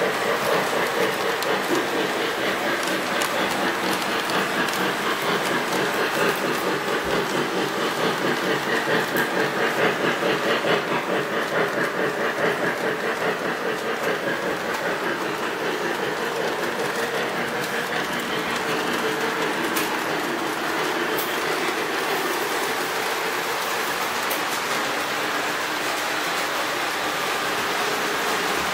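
Model electric train running around its track, a steady rattling whir of wheels and motor. It carries a fast rhythmic pulse through the first half, then evens out.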